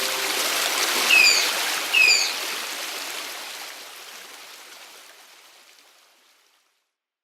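Running stream water, steady at first and then fading gradually to silence, with two short falling bird chirps about one and two seconds in. A last ukulele note dies away at the very start.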